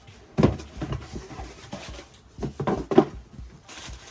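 Handling noise while unboxing a belt sander: knocks and rustles of the tool and its packaging being lifted and set down, with one knock about half a second in and a cluster of knocks near the end, the loudest about three seconds in.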